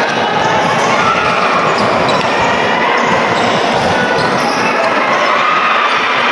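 Basketball game sounds: the ball bouncing on the court amid a steady, loud din of crowd voices.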